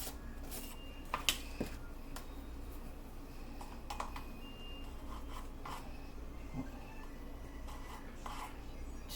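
Metal measuring spoon scooping and scraping baking powder out of its container, light scrapes with a few small clicks, the sharpest about a second in. A low steady hum runs underneath.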